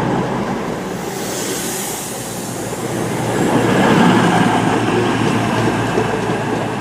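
CrossCountry Class 220 Voyager diesel multiple unit moving along the platform, its underfloor diesel engines and wheels running. A high hiss comes about a second in, and the rumble swells to its loudest around four seconds in.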